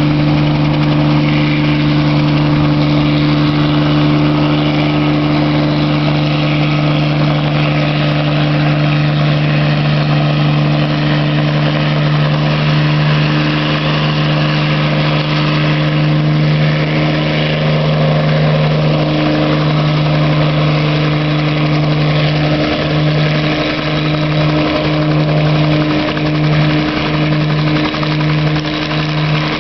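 Bell 47J-2 helicopter hovering, its six-cylinder Lycoming piston engine and two-blade main rotor running steadily with a deep, even hum. Near the end the low hum starts to waver about once a second.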